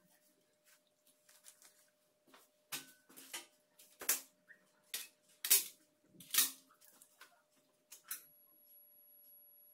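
Steel surgical instruments clicking and clinking as they are handled and set down: a string of sharp metallic clicks from a few seconds in, loudest about halfway through. A thin steady high tone starts near the end.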